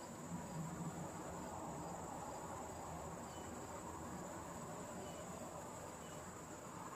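Faint, steady, high-pitched insect chorus over a low background hum, with a few faint short chirps in the second half.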